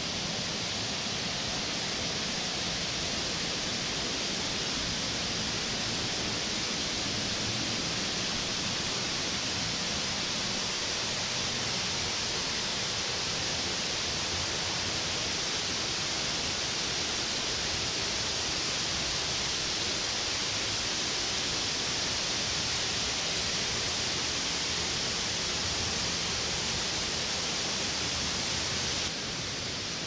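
Steady, even hiss of rushing water from the man-made lazy river. The level drops slightly about a second before the end.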